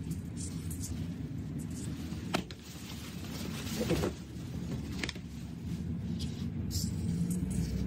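Large scissors cutting through wetsuit neoprene, with the rubbery suit being shifted and handled on the workbench and a couple of sharp clicks. All of this sits over a steady low background rumble.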